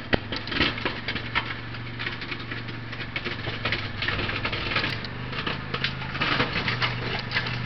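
ATV engine running steadily as the quad drives with its snow plow blade, a low even hum. Irregular crackles and clicks sound over it.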